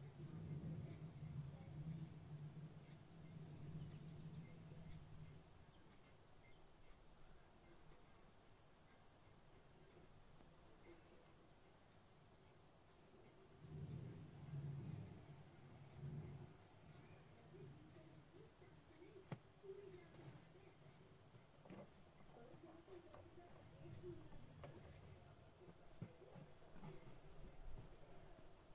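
Near silence, with a faint high chirp of an insect repeating about three times a second over a steady high hiss. Soft low rumbles come in the first few seconds and again about halfway through.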